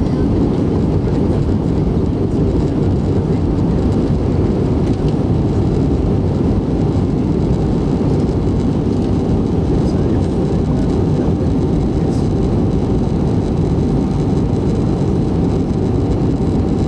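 Steady cabin noise of a jet airliner in flight, heard from inside the passenger cabin: a dense, even rush of engine and airflow noise, heaviest in the low range, with a faint steady tone above it.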